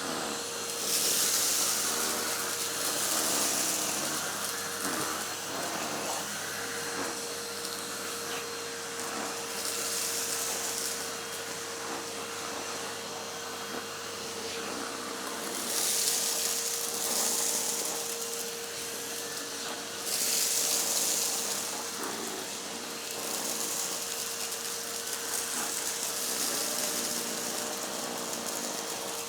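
Numatic Henry Pet cylinder vacuum cleaner running with its suction turned up: a steady motor whine under a loud airy hiss that swells and eases every few seconds.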